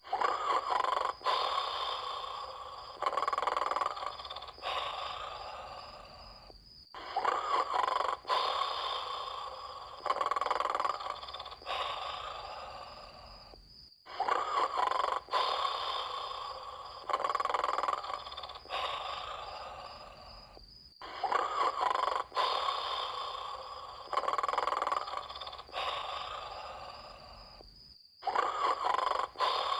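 A sleeper snoring: noisy snores, several every few seconds, each starting sharply and fading away. About every seven seconds there is a brief cut-out, and the same pattern of snores seems to start over.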